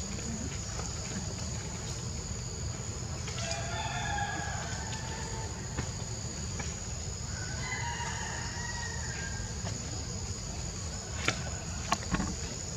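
Rooster crowing twice, each crow about a second and a half long, followed by two sharp clicks near the end.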